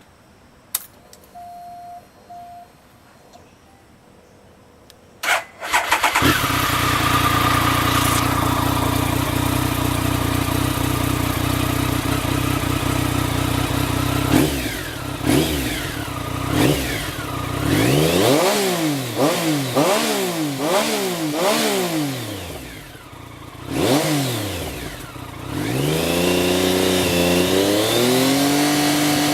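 Triumph Speed Triple's three-cylinder engine, fitted with a replacement silencer, being started: a few clicks and a short beep, then the starter cranks and the engine catches about five seconds in and runs at a steady fast idle. From the middle on it is revved in a string of quick throttle blips, then held at a higher, wavering rev near the end.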